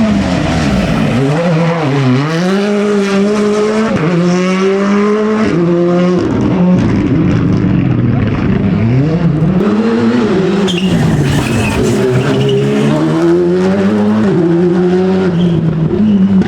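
Rally car engine revving hard through the gears, its pitch climbing and then dropping sharply at each shift, with dips and pull-aways where the driver lifts and accelerates again.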